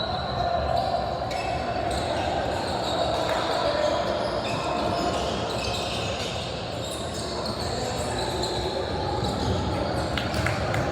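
Basketball game in a gymnasium: a ball bouncing on the court amid indistinct voices of players and spectators, echoing in the large hall.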